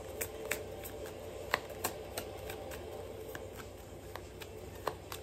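Tarot cards being shuffled by hand: a run of light, irregular clicks and taps, over a faint steady hum.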